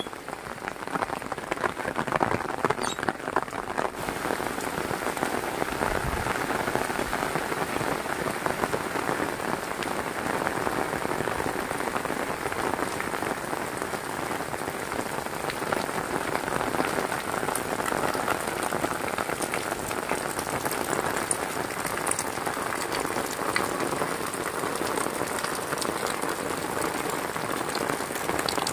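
Heavy rain pouring steadily, a dense patter of drops with a few sharper drop hits. It grows a little louder over the first couple of seconds, then holds steady.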